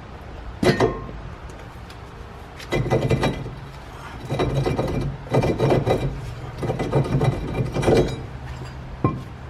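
Metal scraping and rattling in several short bursts as the front brake caliper carrier is worked loose and pulled off, with a sharp click about a second in and another near the end.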